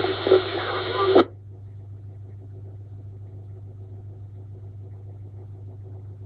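CB radio on FM: a burst of hiss for just over a second, cut off suddenly, then a steady low hum while the channel sits quiet.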